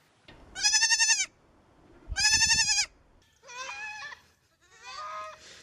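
An animal giving four wavering, high-pitched calls, each under a second long: two loud ones, then two quieter, lower ones.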